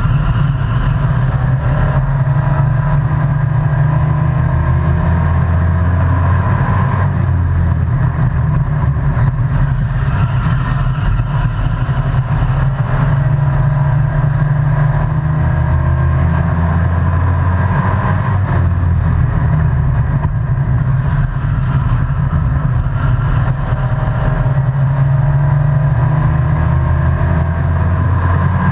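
Race truck's engine running hard, heard from inside the cab, swelling and easing about every ten seconds as the truck laps the oval.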